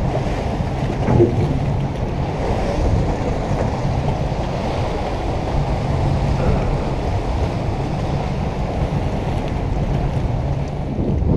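Jet boat running steadily, its engine's low hum under rushing water, with wind buffeting the microphone.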